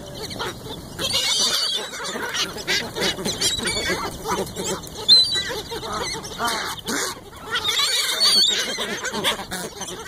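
Mixed flock of American white ibises, gulls and ducks calling over one another: many short overlapping calls, some high and whistled, with one sharp loud call about five seconds in.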